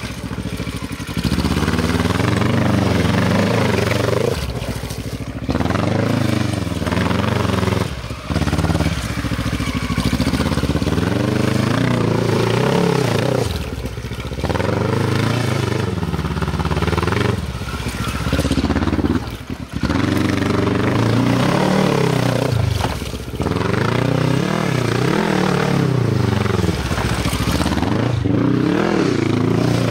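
Quad bike (ATV) engine being ridden hard: its pitch rises and falls again and again with the throttle. It drops back briefly every four to five seconds.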